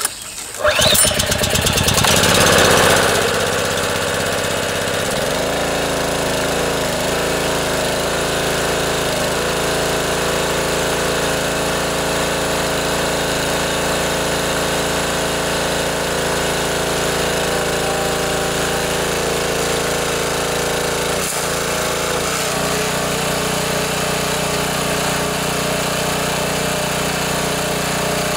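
Subaru EA190V single-cylinder engine on a pressure washer pull-started on choke. It catches about a second in, revs up, and then runs steadily, with a brief dip about 21 seconds in. It is a test start of the newly replaced pull rope and rewound starter spring.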